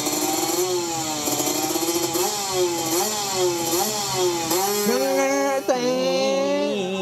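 Small two-stroke drag motorbike revving up and down at the start line, then launching about four and a half seconds in. Its engine note climbs sharply, dips suddenly for a moment, then climbs again.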